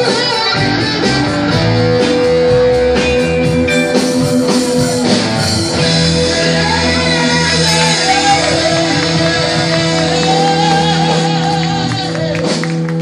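Live rock band with electric guitars playing a blues-rock number. About halfway through it settles into a long sustained chord, with a voice singing over it.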